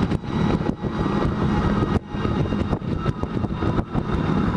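Motorcycle running at road speed, its engine rumble steady under gusty wind buffeting the microphone.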